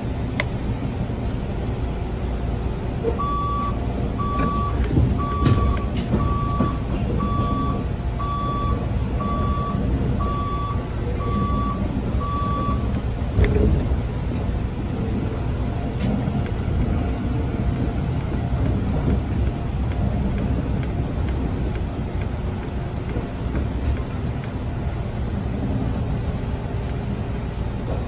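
Steady low rumble and hum of an electric train, with a run of about ten short electronic warning beeps, one a second, starting about three seconds in. A single knock comes just after the beeps stop.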